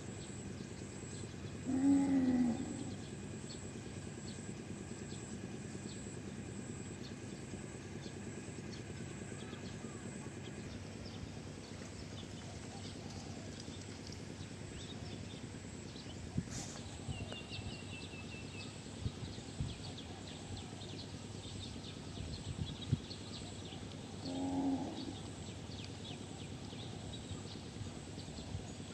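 Cattle mooing twice: a short moo about two seconds in and another near the end, over a steady faint outdoor background with a few soft knocks.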